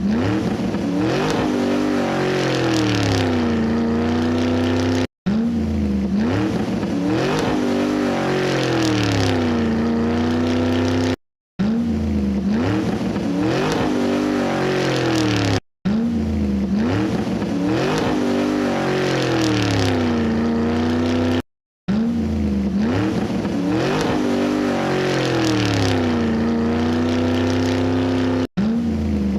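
Car engine revving sound: the pitch climbs quickly, then falls back and levels off into a steady run. The same few-second piece repeats over and over, each time broken off by a sudden cut to silence.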